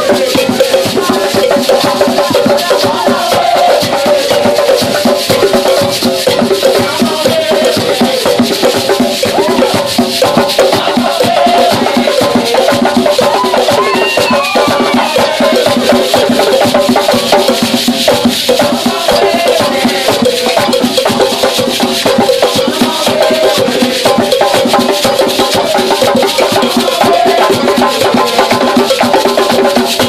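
Gwo ka music: ka hand drums and a djembe played with the hands, with gourd shakers rattling and voices singing over the drumming.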